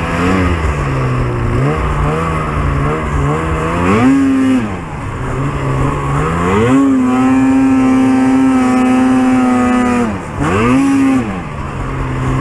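Arctic Cat XF 8000 snowmobile's two-stroke 800 engine pulling through deep powder. It revs in short blips, climbs about four seconds in, is held at high revs for about three seconds before dropping back, then revs briefly once more near the end.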